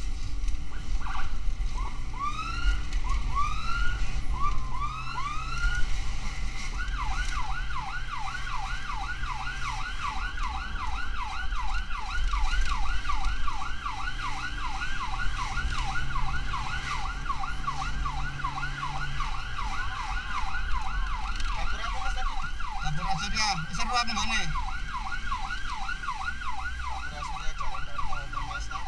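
Emergency vehicle electronic siren: a few slow rising whoops, then about seven seconds in it switches to a fast warbling yelp, about four sweeps a second, over a low steady hum.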